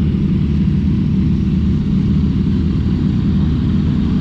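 Several motorcycle engines idling together, a steady low rumble.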